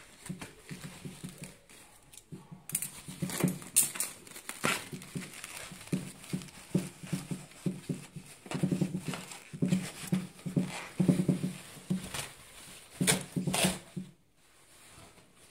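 White woven plastic sack wrapping being cut and pulled open by hand: rapid scratchy rustling and tearing strokes with sharp crackles.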